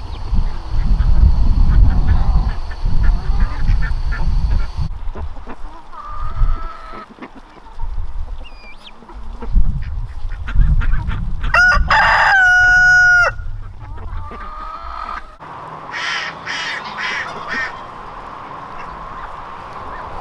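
Farmyard poultry calling, among them a rooster crowing once for about a second and a half around the middle, then a quick run of about five short calls near the end. A low rumble dominates the first few seconds.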